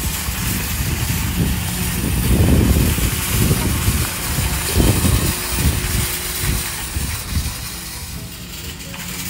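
Empty wire shopping cart rolling over asphalt, its wheels and basket rumbling and rattling, louder in surges between about two and five seconds in.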